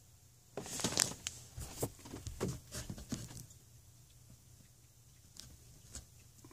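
Rustling and scraping of handling, with sharp clicks, for about three seconds starting half a second in, then only a few faint ticks.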